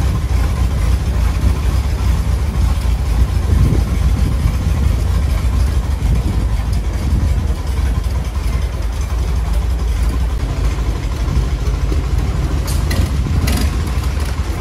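Long-tail boat engine running steadily at low speed, a low drone, with a couple of short sharp clicks near the end.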